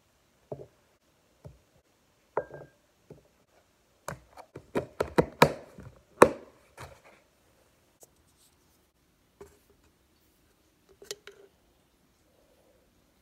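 Knife chopping vegetables on a cutting board: a few single knocks, then a quick run of louder chops in the middle, then a few lighter taps.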